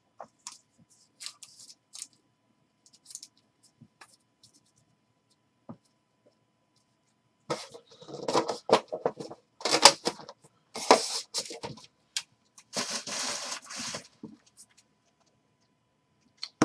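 Hands handling trading cards and a cardboard card box on a tabletop. In the first half there are a few light taps and scratches. From about halfway comes a loud run of scraping, rustling and knocks as the box is handled.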